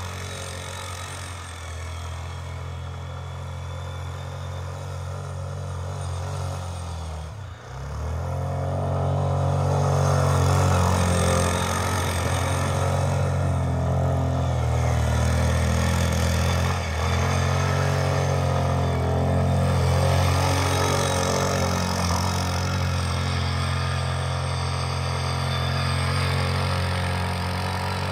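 ATV engine running and revving as the quad drifts through deep snow. The engine note drops briefly about a quarter of the way in, then comes back louder, and dips once more around the middle.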